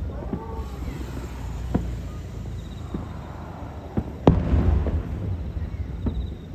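Aerial fireworks shells bursting, several sharp booms over a continuous low rumble, the loudest about four seconds in.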